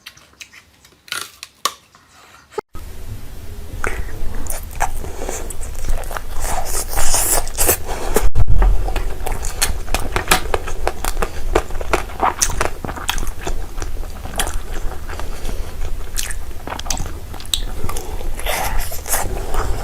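Close-miked mukbang eating: biting and chewing with crunching and wet clicking. It is sparse and quiet at first, then dense from about three seconds in, over a low hum.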